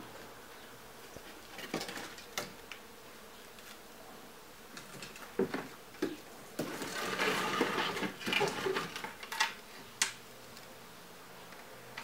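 Wooden boards knocking and scraping against each other as planks are pulled from a pile of scrap lumber. There are scattered single knocks at first, then a longer stretch of rattling and scraping past the middle, ending in a sharp knock.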